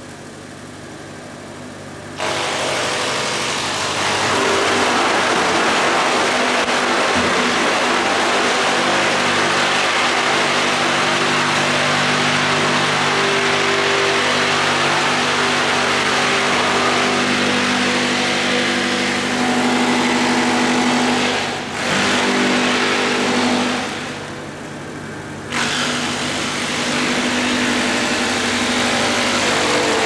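Disc wood chipper running with a steady hum. About two seconds in, it starts chipping a long pole fed into its hopper, a loud grinding noise over the hum. The noise eases off briefly twice in the last third before the chipping picks up again.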